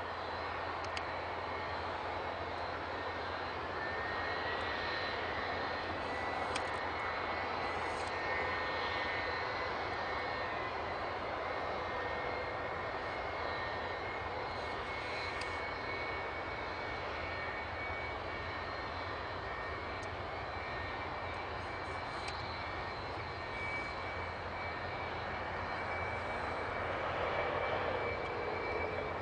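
Jet airliner engine running steadily at idle: a constant rushing noise with a thin high whine over it, the whine drifting slightly upward now and then.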